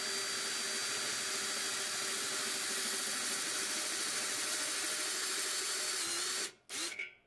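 Electric drill with a step drill bit boring a hole into a steel tube, running steadily at a constant pitch. It stops about six and a half seconds in, then gives one brief second burst near the end.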